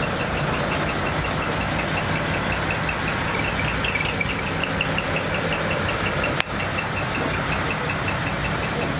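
Large truck diesel engine idling: a steady low rumble with a regular light ticking over it. A single sharp click about six seconds in.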